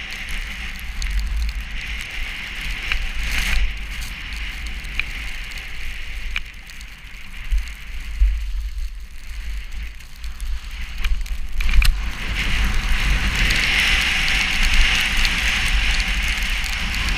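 Snowstorm wind buffeting the microphone with a low rumble over a steady hiss of wind-driven snow. The hiss grows louder about two-thirds of the way in.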